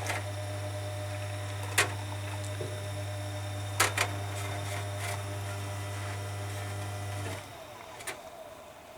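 Coffee machine running with a steady electric hum that cuts off abruptly about seven seconds in, with a few sharp clicks along the way.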